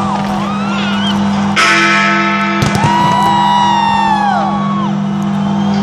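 Loud music with sustained tones and sliding, falling notes accompanying a fireworks display, with sudden firework bangs about one and a half and two and a half seconds in.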